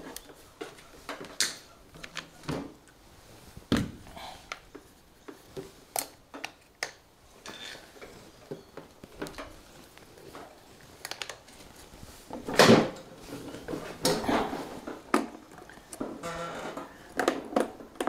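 Scattered clicks, knocks and clunks of jumper-cable clamps and a spare battery being handled and moved, with a louder knock about two-thirds through.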